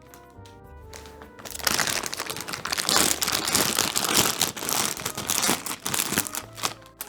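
Plastic packaging being crinkled and crumpled for several seconds, starting about a second and a half in, as a vacuum-sealed pillow is unwrapped. Background music plays underneath.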